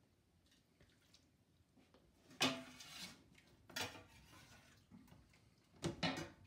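A metal spoon clanking and scraping against a stainless steel pot while cooked broccoli rabe is scooped out into a serving bowl. There are three short clatters, about two and a half, four and six seconds in.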